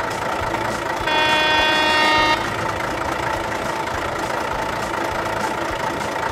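Truck engine running steadily: a sound effect laid over plastic toy trucks driving in sand. About a second in, a horn honks for about a second and a half.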